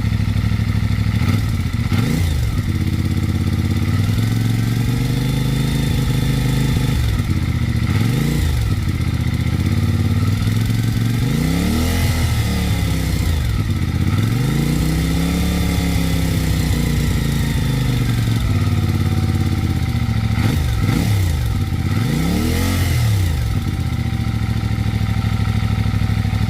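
CFMoto 450MT's parallel-twin engine idling with a ticking from the cylinder head, blipped up and back down about six times. The owner takes the ticking for a valve guide problem.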